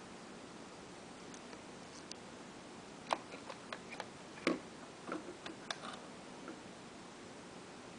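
Irregular small clicks and taps of fingers handling wires and plastic parts inside a 1/14 scale model truck, about a dozen in a few seconds from about three seconds in, one knock louder than the rest, over a faint steady hiss.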